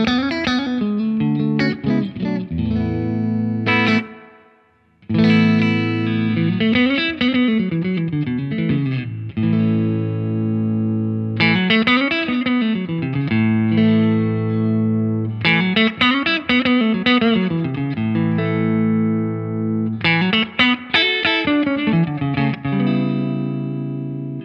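Electric guitar played through a Laney Lionheart Foundry combo amp with its middle control cut to minus two: phrases of chords and moving single notes, with a brief break about four seconds in.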